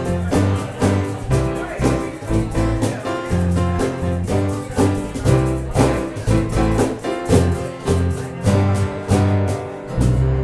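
Instrumental music with a moving bass line and a steady beat of about two hits a second, settling onto a held chord near the end.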